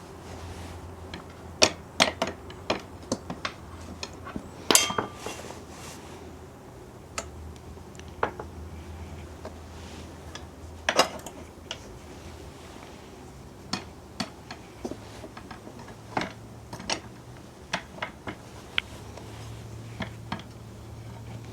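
Irregular metallic clinks and taps of hand tools and metal parts being handled during work on a motorcycle's rear wheel, with sharper knocks about two, five and eleven seconds in, over a faint low hum.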